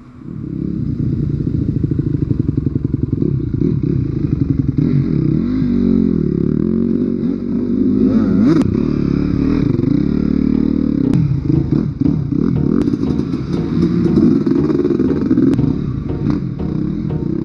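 Dirt bike engines revving, their pitch rising and falling as motocross bikes ride past on the dirt track, with a few sharp clicks scattered through.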